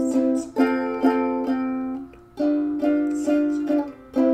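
Instrumental music between sung verses: a plucked string instrument strumming chords, about two strums a second, with a brief break about two seconds in.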